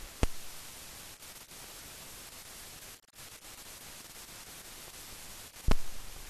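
Steady hiss of an old soundtrack that carries no recorded sound, broken by two sharp pops, one just after the start and a louder one near the end, and a moment's dropout about halfway through.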